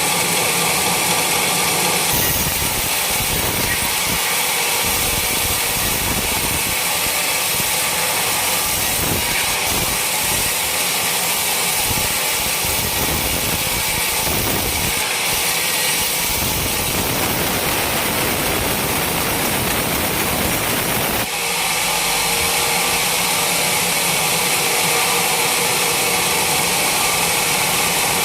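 Sawmill running steadily while sawing a coconut palm trunk. The sound gets fuller and rougher about two seconds in, then returns to its earlier steady tone about 21 seconds in.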